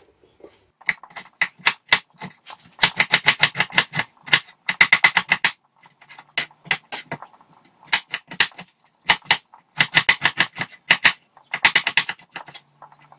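Kitchen knife chopping an onion on a wooden cutting board: quick runs of knocks, about five or six a second, broken by short pauses.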